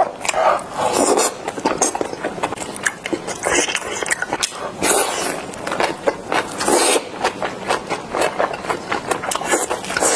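Close-miked mouth sounds of a person biting and chewing Korean rice sausage (sundae): irregular wet smacks and clicks, several a second, with a few longer squelchy bites.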